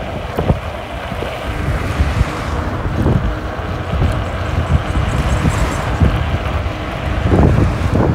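Wind buffeting the microphone of an electric scooter riding at speed, a loud gusting rush with road rumble and a few short knocks from bumps in the road.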